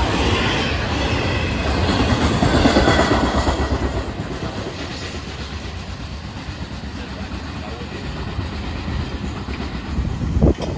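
Freight train of intermodal flatcars carrying highway trailers rolling past, its wheels clattering over the rail joints. It is loudest a few seconds in, then fades as the train moves off. A single sharp knock sounds near the end.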